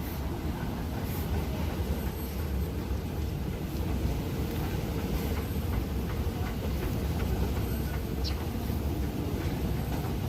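Steady low rumble of a vehicle in motion, heard from inside, with scattered light clicks and rattles.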